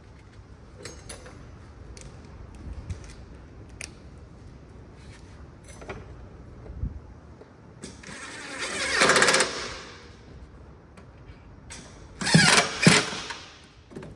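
Power driver running screws into a plastic body panel: one longer run about eight seconds in, then two short bursts near the end, with small clicks and knocks of handling in between.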